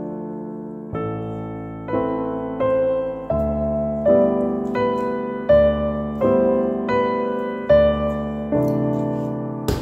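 Background piano music: a slow tune with a note or chord struck about every 0.7 seconds, each left to ring and fade. A short click comes near the end.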